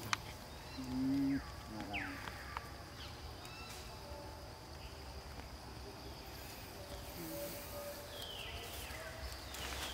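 Outdoor forest ambience: a steady high insect drone, with a few short calls that fall quickly in pitch at about two seconds in and again near the end. About a second in, a brief low hum-like voice sound is the loudest thing heard.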